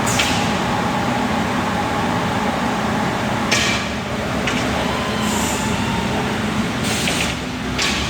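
STG-2620 automatic CNC glass cutting machine running: a steady mechanical drone with a low hum, broken by short bursts of hiss about three and a half seconds in and twice near the end.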